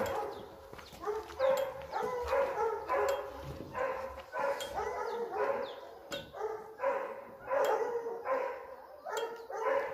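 Dogs barking repeatedly, about one or two barks a second, the barks overlapping at times.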